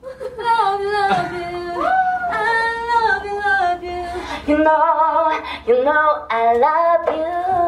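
A young woman singing into a handheld megaphone: long held notes that bend up and down, in several short phrases.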